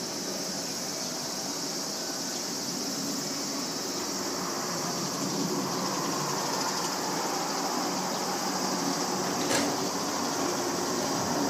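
Turbofan engines of an Embraer E175 airliner climbing after takeoff: a steady rushing roar that grows slowly louder, with a brief click about nine and a half seconds in.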